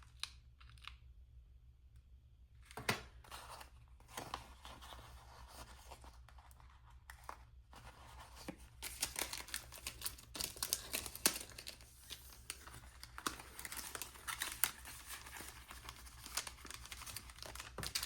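Paper and sticker sheets being handled: irregular crinkling, soft tearing and peeling and light taps, sparse at first and busier in the second half.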